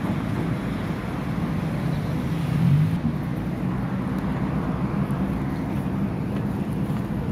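Low, steady rumble of city street traffic, swelling briefly a little past two seconds in.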